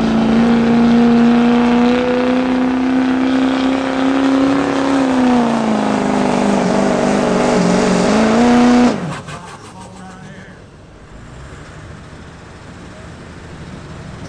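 Chevrolet Silverado's Duramax diesel V8 running flat out under load as it pulls a weight sled. Its pitch holds steady, then sags as the sled bogs it down. About nine seconds in the throttle is dropped and the engine sound falls away suddenly, leaving only a low background noise.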